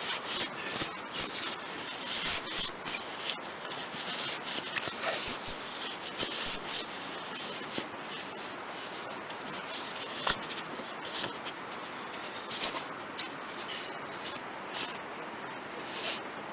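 Fabric rustling and rubbing with irregular crackles as camping gear is handled and packed up.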